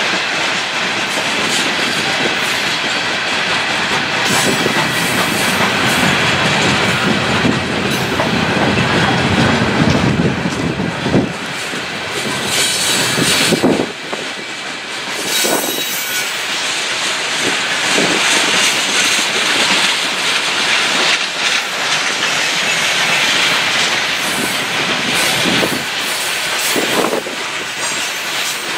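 A freight train of open-top hopper cars rolling past, its wheels clicking over the rail joints, with some wheel squeal. A low rumble drops away about eleven seconds in.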